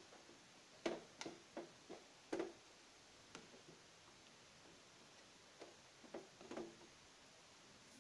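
Faint, irregular soft taps from a glutinous rice flour batter being mixed by hand in a plastic tub, bunched in the first two and a half seconds and again around six seconds in.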